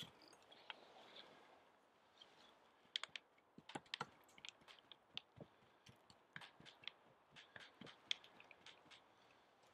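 Faint scrapes and light, irregular clicks of a small shovel's blade spreading and patting soil over moss on a raised platform of logs, the clicks coming thickest from a few seconds in.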